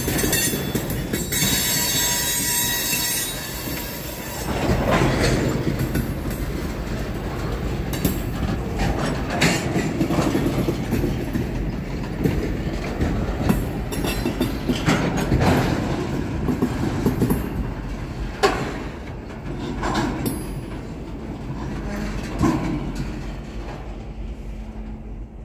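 Freight train tank cars rolling past over a grade crossing: a steady rumble of the wheels with irregular clanks and knocks as the wheels cross the rail joints and crossing, and a high wheel squeal in the first few seconds. The sound falls away near the end.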